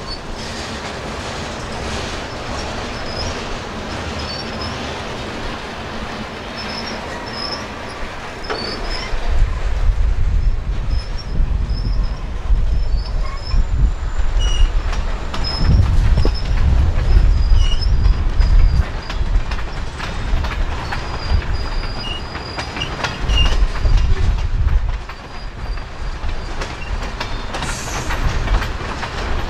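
Freight train rolling past: steel wheels clicking over the rails with short high wheel squeals, over a low rumble that swells and fades in waves from about nine seconds in.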